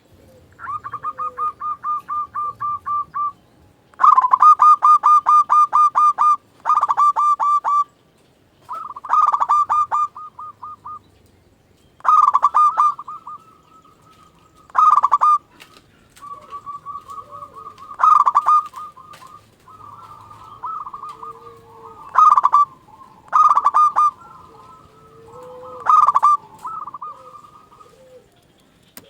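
Zebra doves (perkutut) cooing: about a dozen phrases of rapid staccato notes, one after another with short gaps, and a fainter lower-pitched call now and then.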